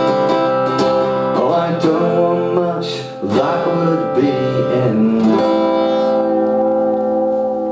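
Acoustic guitar strummed solo in the song's closing bars. About two-thirds of the way in it settles on a final chord that is left to ring.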